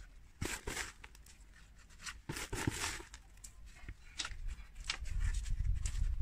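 Gloved hand scraping and pressing gritty succulent and cactus potting mix with perlite into a terracotta pot, in short rustling, crunching scrapes. A low rumble comes in near the end.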